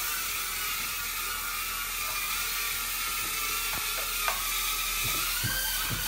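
Potensic A20W mini quadcopter drone's propellers whining steadily as it flies. The pitch rises a little about four and a half seconds in as the drone climbs, with a light click just before.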